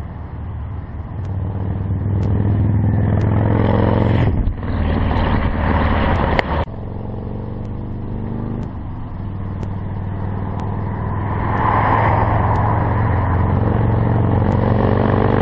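Motorcycle engine and exhaust running as the bike rides past a camera set on the road surface. The sound swells and fades, with sudden drops about four and six and a half seconds in.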